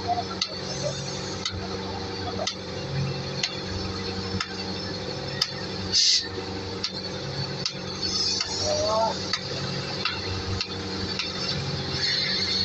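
Truck crane's diesel engine running steadily, with a sharp click about once a second and a brief hiss about halfway through.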